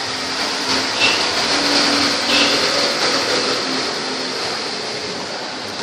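Suzuki Burgman 125i scooter's single-cylinder engine running through an aftermarket aluminium exhaust tip: a steady hiss with a low hum that rises slightly once or twice in the first few seconds.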